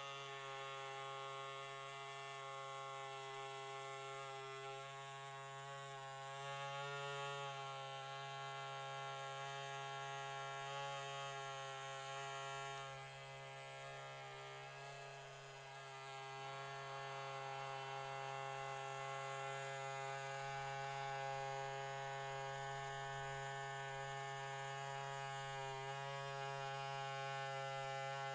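Handheld electric scalp massager buzzing steadily as it is moved over the head. Its pitch wavers slightly at times as it is pressed against the scalp, and it goes a little quieter for a few seconds in the middle.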